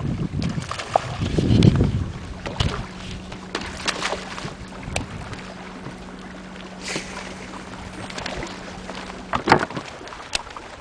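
Small boat on open water: water slapping the hull and wind on the microphone, with several sharp knocks carried through the deck and a heavy low rumble in the first two seconds. A faint steady hum runs from about two seconds in until the loudest knock near the end.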